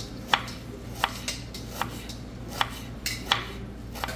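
Kitchen knife slicing a halved onion thinly on a wooden cutting board: about six sharp knocks of the blade meeting the board, irregularly spaced.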